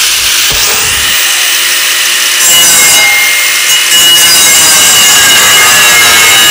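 Angle grinder with a cut-off wheel cutting through an aluminium ramp rung: a steady high whine and hiss of the wheel on the metal, growing louder about two and a half seconds in.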